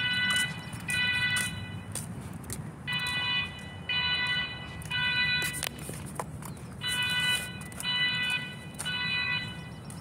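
Building fire alarm horns sounding the evacuation signal during an alarm test: repeating groups of three tones about a second apart, each group followed by a pause, the temporal-three pattern. A few handling knocks come about midway.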